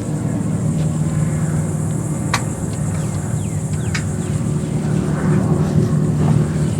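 A motor running steadily with a low even hum, over a steady high insect-like buzz; a couple of sharp ticks and a few faint chirps sound in the middle.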